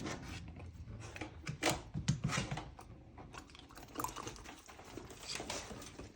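Belgian Malinois puppies eagerly eating Greek yoghurt: irregular wet licking, lip-smacking and chewing, with sharp little clicks scattered through.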